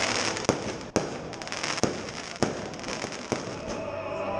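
Aerial fireworks bursting overhead: five sharp bangs at irregular intervals of about half a second to a second, over a steady high hiss.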